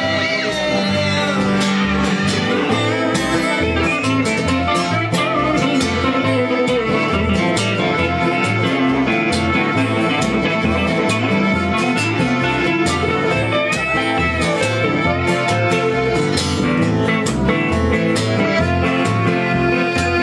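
Instrumental passage from a live acoustic trio: accordion, acoustic guitar and electric guitar playing together over a steady strummed rhythm, with a melody line bending in pitch.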